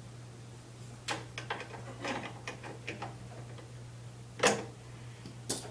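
Small clicks and rattles of lawnmower handle parts being handled and fitted during assembly, then two sharper knocks near the end, over a steady low hum.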